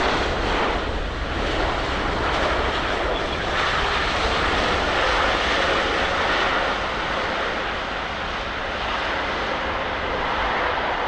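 Jet engines of an Air France Boeing 777-200ER airliner arriving at close range: a loud, steady roar that eases slightly in the last few seconds.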